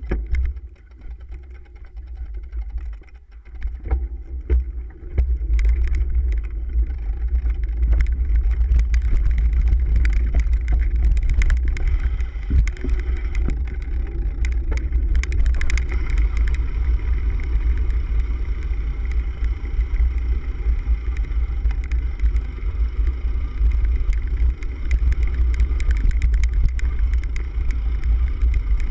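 Low rumble of a cyclocross bike riding over a bumpy dirt trail, picked up by a handlebar-mounted camera, with scattered rattles and clicks from the bike. It is lighter for the first few seconds, then a steady loud rumble from about five seconds in.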